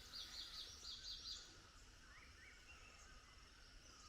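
Faint bird calls against quiet forest background: a quick run of short, high repeated notes in the first second and a half, then a couple of fainter, lower notes about two seconds in.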